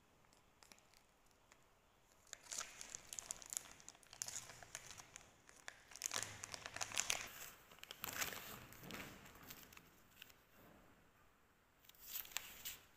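Thin plastic food wrapping crinkling and rustling as it is handled and pulled off a pack of green cakes, in irregular bursts through the middle, with one last short burst near the end.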